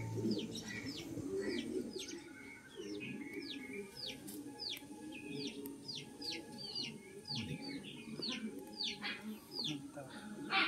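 A bird calling over and over with short high notes that fall in pitch, about two a second, with lower bird sounds underneath.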